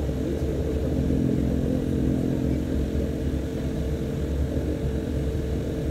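Embraer EMB-120 Brasilia's Pratt & Whitney Canada PW118 turboprop running at low power while the aircraft taxis after landing, heard from the cabin beside the engine. It is a steady drone, with a held hum over a low rumble.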